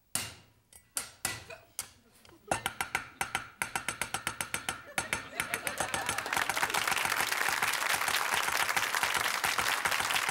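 A Chinese cleaver chops garlic and ginger on a wooden cutting board: a few scattered knocks, then fast, even chopping from about two and a half seconds in. From about six seconds in, audience applause builds and carries on.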